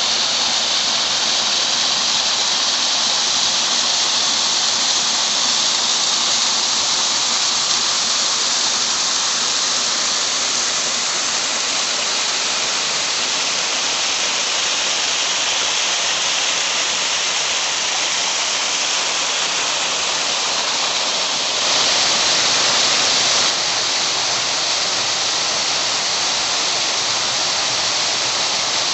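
Steady rush of falling and tumbling water from a Black Forest gorge stream or waterfall. About three quarters of the way through it turns briefly louder and hissier for a couple of seconds, then settles back.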